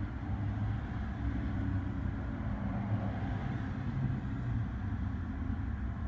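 A steady low engine rumble, unchanging throughout.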